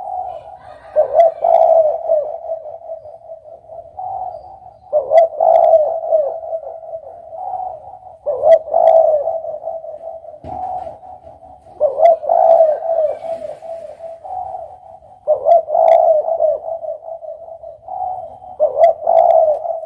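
Spotted dove (derkuku) cooing: the same low cooing phrase repeats about every three and a half seconds, each phrase lasting two to three seconds.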